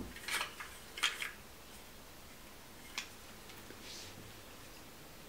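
Faint, irregular clicks and rustling scrapes of small tools being picked up and handled on a workbench: two rustles in the first second or so, a sharper click at about three seconds and a soft hiss near four seconds.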